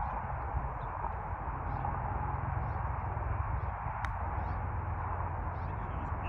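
A putter tapping a golf ball once, a single sharp click about four seconds in, over a steady background rumble and hiss.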